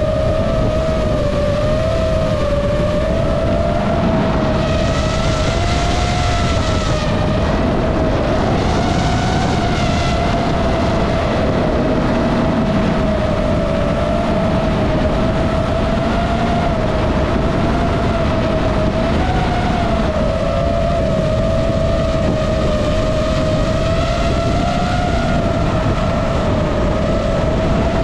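FPV drone's motors and propellers whining at a steady, slightly wavering pitch as the throttle shifts, over a rush of air. Short bursts of added hiss come about five and nine seconds in.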